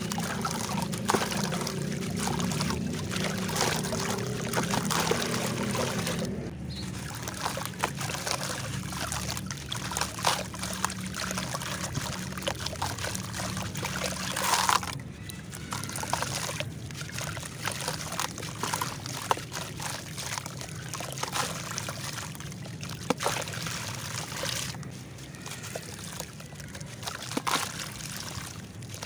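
Gritty clay chunks crumbled by hand into a tub of water: dry grit pouring and trickling into the water with dense crackling and many small clicks. It sounds fuller for about the first six seconds, then settles into quieter crunching and sloshing as the wet mass is squeezed underwater.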